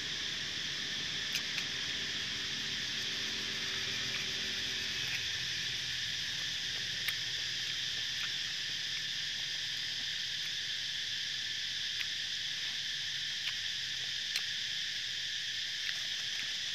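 A steady, high chorus of insects buzzing without a break, with a few single sharp clicks scattered through it.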